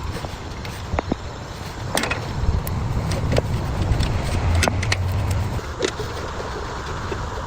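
Small tractor engine running steadily with a low rumble, with scattered sharp clicks and knocks over it.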